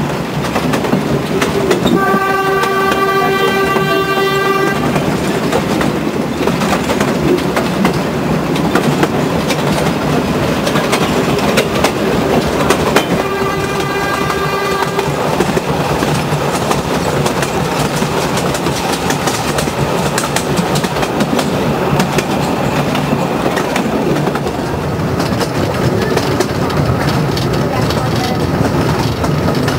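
Narrow-gauge forest railway train running, with steady wheel-on-rail noise heard from the open-sided carriages. The locomotive's horn sounds twice, held for a couple of seconds each time: once about two seconds in and again about halfway through.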